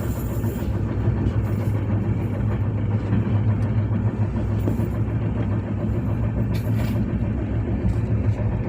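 A moving train running with a steady low rumble, with a short burst of higher-pitched noise about seven seconds in.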